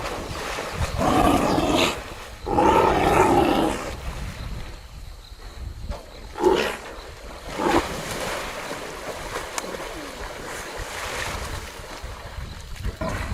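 An animal's loud calls: two long ones in the first few seconds, then two short sharp ones, over steady background noise.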